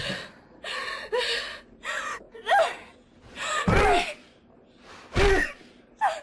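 A woman gasping and crying out again and again, about eight short breathy cries, several with a brief rise or fall in pitch.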